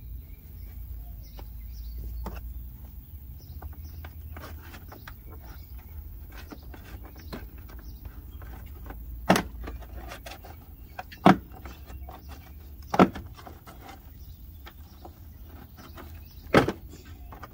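Plastic retaining clips of a Saturn Sky's door sill plate snapping loose as the plate is pried up: four sharp snaps about two seconds apart in the second half, with smaller clicks and rustling between them.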